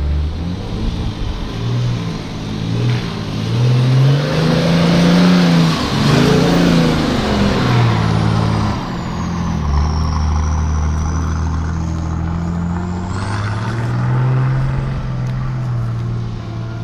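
Four-wheel-drive vehicles driving past close by over a rutted sandy track, their engines revving up and down. The nearest is loudest about four to seven seconds in, and a high whine falls and then rises after it.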